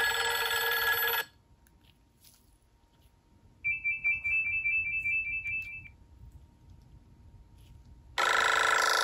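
Nokia 5700 XpressMusic's built-in stereo speakers playing short previews of its preset ringtones at maximum volume, one after another as the tone list is scrolled. A rich electronic tone plays for about a second at the start. A fast pulsing two-note trill follows in the middle for about two seconds, and another tone begins near the end.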